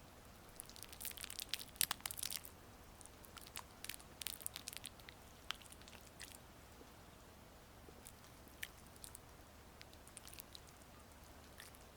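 Gua sha tool working over oiled skin: soft wet, sticky clicks and crackles, in clusters about a second in and again around four seconds in, sparser afterwards, over a faint steady rain hiss.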